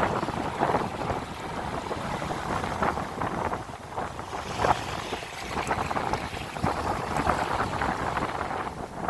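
Wind buffeting the microphone over ocean waves, rising and falling in irregular gusts.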